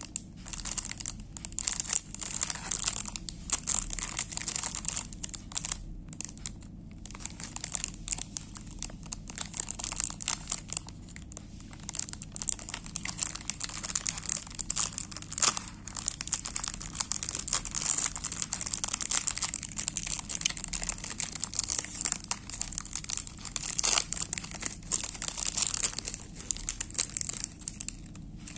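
Plastic snack-cake wrapper crinkling and crackling continuously as it is handled and pulled open along its crimped seal.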